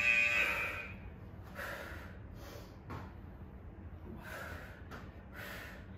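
A woman's short, sharp breaths of exertion, about five of them roughly a second apart, as she works through kettlebell side lunges.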